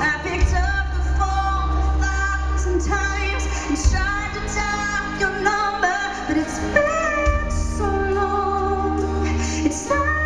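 A woman's lead vocal singing a country-pop song live with band accompaniment, with long held notes over a steady low backing.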